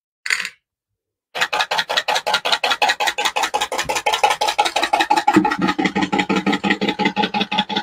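Screws rattle briefly as they drop into a small metal can, then the Haven Knocker model-boat engine sound generator starts: a bolt head on a motor-driven shaft strikes the can, which holds three #6 screws loose inside, giving a fast, even knocking of about ten beats a second with a ringing metallic tone. About five seconds in the sound changes as a bucket is lowered over the device to mimic a model's hull.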